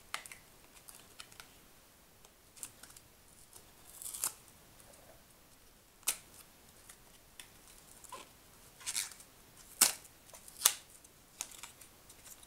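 Fingers prying at a small cosmetics box with the blush compact wedged tightly inside: scattered clicks, scrapes and short rustles of packaging, with a few sharper clicks near the end.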